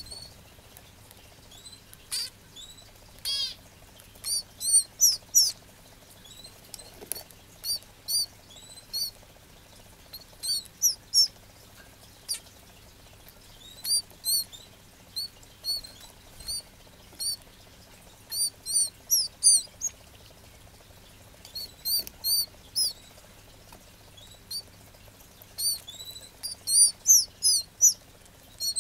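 Red canary chick giving thin, very high chirps in quick runs of two to five, with short pauses between runs: the begging calls of a nestling being hand-fed.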